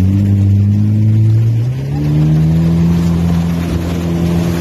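Jet ski engine revving up and accelerating: its pitch rises at the start, climbs again about two seconds in, then holds steady at speed.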